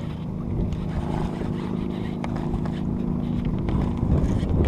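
Fishing reel cranked steadily while fighting a fish, a steady whirr that stops near the end, over wind rumble on the microphone.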